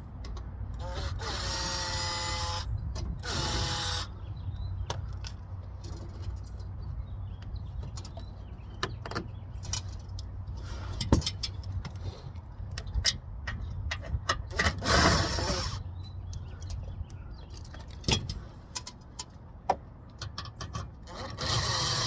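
Power drill spinning fasteners out of a car's plastic skid plate in short bursts of motor whine: twice in the first few seconds, again around the middle and near the end. Scattered clicks and knocks of the tool and the fasteners fall between the bursts.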